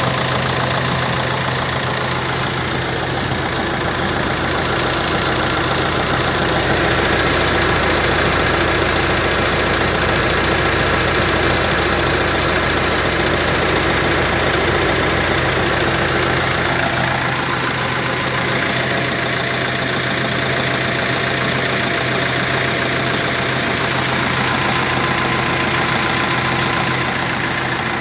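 Nissan Navara NP300's 2.5-litre turbodiesel engine idling steadily with the hood open, with the light knocking clatter of a diesel at idle.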